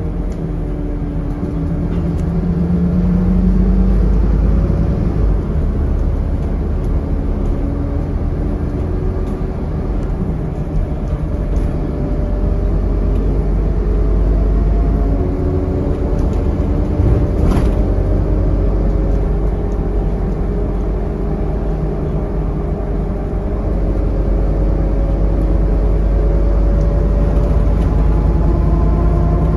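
On-board sound of a Scania N230UD double-decker bus under way: a low rumble of diesel engine, driveline and road noise, with engine tones rising and falling as the bus changes speed. A single sharp knock comes about halfway through, and the engine pitch climbs near the end as the bus accelerates.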